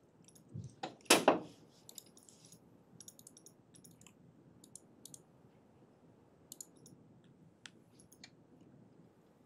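Sparse, irregular light clicks of a computer keyboard and mouse being worked, with one louder sharp knock about a second in.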